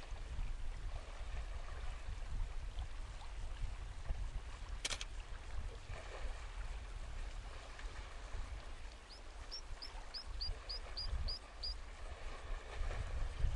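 Low, uneven rumble with faint water sloshing as elephants wade in a shallow river. A single sharp click comes about five seconds in. About nine seconds in, a small bird repeats a short rising chirp about nine times, some three a second.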